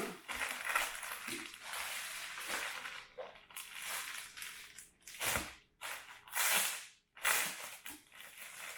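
Crinkly packaging rustling and crackling in uneven bursts as a jersey is handled and unwrapped, with a few louder crackles past the middle.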